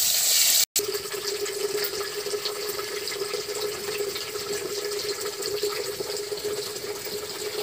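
Fish pieces frying in hot oil in a wok: a steady sizzle full of fine crackles, with a steady hum underneath. The sound cuts out completely for a split second under a second in, then the sizzle resumes.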